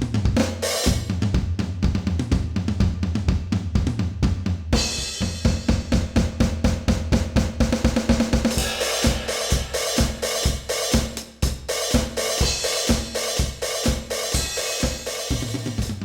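Donner DED-200 electronic drum kit played in a busy beat, its kick, snare, hi-hat and cymbal samples heard straight from the sound module with the module's built-in reverb. A cymbal wash comes in about five seconds in and grows fuller near the middle, over a steady kick-and-snare pulse.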